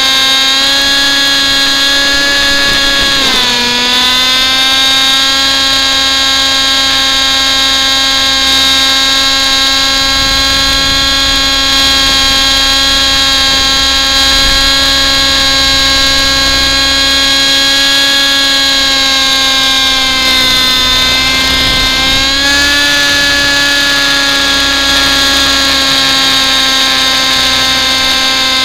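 Thunder Tiger Raptor 50 Titan RC helicopter's two-stroke nitro engine and rotors, heard close-up from a camera mounted on the helicopter, running loud at a high steady pitch. The engine note dips suddenly about three seconds in and sags again around twenty seconds in, each time recovering.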